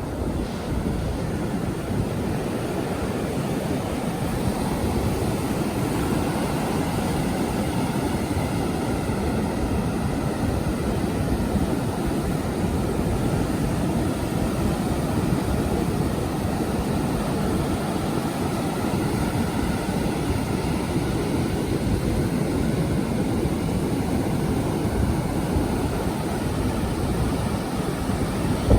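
Steady roar of surf breaking on the beach, with wind buffeting the microphone.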